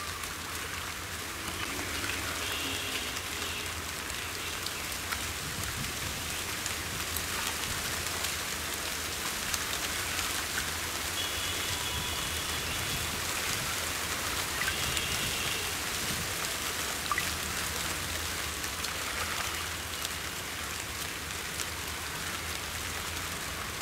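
Steady fine crackling and trickling of shallow muddy water as hands work through wet mud and water, sounding like light rain. A few faint short high chirps come in over it.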